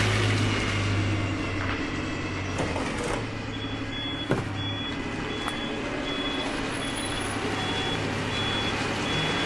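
Garbage truck engine running with loose trash sliding and tumbling, a backup alarm beeping about one and a half times a second from about three and a half seconds in, and a single sharp knock shortly after the beeping starts.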